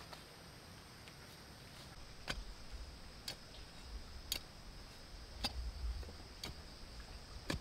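Long-handled shovel being driven into soil while digging a hole: a sharp click about once a second, some with a dull thud, over a steady high-pitched background hum.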